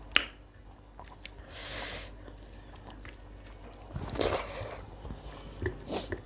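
Close-up eating sounds from a rice-and-dal meal: wet mouth clicks and smacks, with two longer, wet, slurp-like sounds about a second and a half in and about four seconds in.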